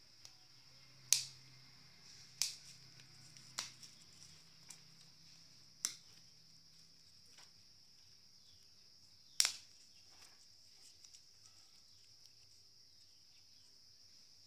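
A handful of sharp pops and cracks from the charcoal fire and the maize cobs roasting over it, the loudest about a second in and about nine seconds in. Behind them runs a steady high trill of crickets.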